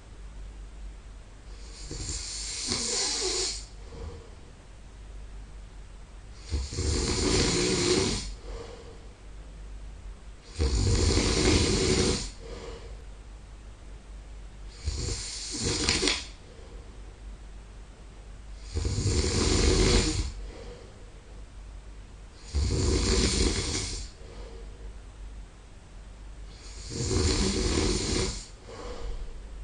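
A sleeping man snoring: seven loud snores, one roughly every four seconds, each lasting about a second to a second and a half, with quiet breathing between them.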